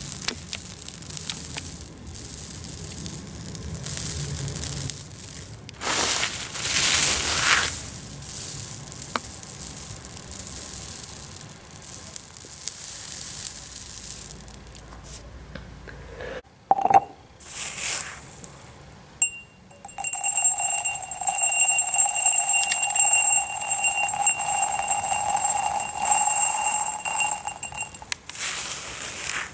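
Small aquarium gravel rustling and grinding, swelling louder a couple of times. About two-thirds of the way in, a steady, loud, high ringing tone takes over, of unclear source, and holds until near the end.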